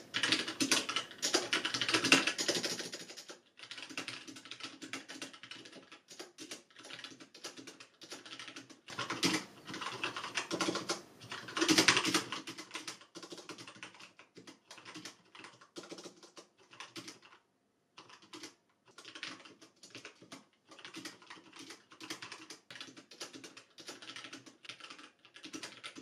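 Steady typing on a Magicforce 68 mechanical keyboard: a dense patter of key clicks, first on Outemu Brown switches and then on Cherry MX Black linear switches, with O-rings fitted to damp the keystrokes. The clicks come in bursts, louder in the first few seconds and again partway through, with a brief pause past the middle.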